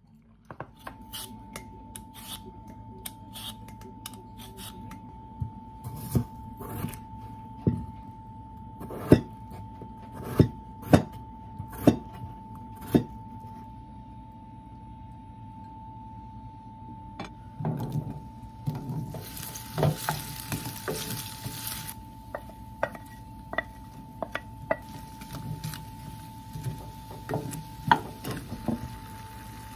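Kitchen clatter of dishes and utensils: a series of sharp clinks and knocks. Then a few seconds of hissing sizzle as cubed potatoes and onion go into a pan of hot oil, followed by a wooden spatula knocking and scraping as it stirs them. A steady faint high hum runs underneath.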